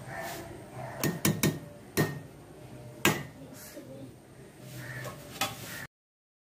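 Perforated steel skimmer clinking and scraping against a metal cooking pot as chicken dum biryani is scooped out. There are about six sharp clinks, the loudest about three seconds in, and the sound stops abruptly near the end.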